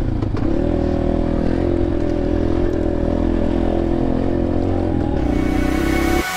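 Motorhead Sports 250 cc dirt bike engine running steadily at cruising revs while riding. A rising hiss builds in near the end.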